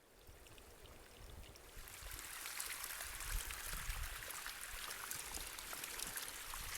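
Flowing stream water, a steady rushing hiss that grows louder over the first two seconds, over a low rumble.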